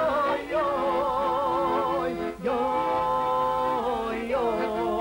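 A man and a boy singing a slow folk song in unison to piano accordion accompaniment, the accordion holding steady notes beneath. The voices hold long notes with a wide vibrato, breaking off and starting a new phrase about every two seconds.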